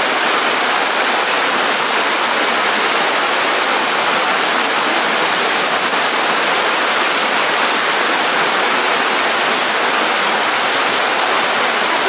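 Waterfall: a single narrow stream of water pouring off a rock ledge, a steady rush of falling water with no change throughout.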